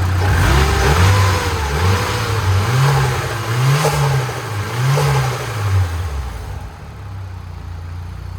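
Turbocharged SR20DET 2.0-litre four-cylinder engine revved in about five quick throttle blips, the pitch rising and falling each time, then settling back to a steady idle about six and a half seconds in.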